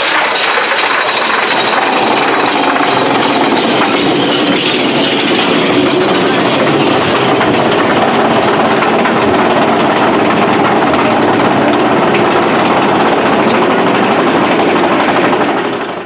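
Big Thunder Mountain Railroad mine-train roller coaster car running along its track at speed: a loud, steady rattling clatter with a rushing noise.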